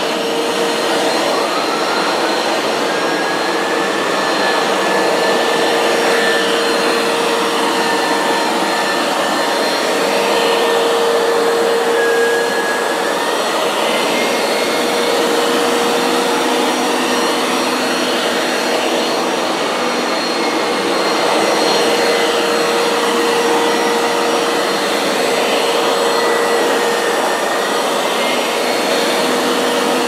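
Hoover Power Scrub Deluxe FH50150 carpet washer running, pushed back and forth over carpet in cleaning strokes: a steady motor drone with a whine whose pitch wavers slightly.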